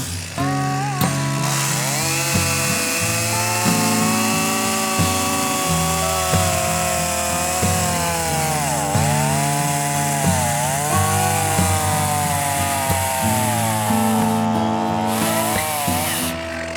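Stihl MS362 two-stroke chainsaw cutting through a log, its engine pitch dipping under load as the chain bites and climbing again several times, with background music playing over it. The saw runs steadily after new fuel lines were fitted.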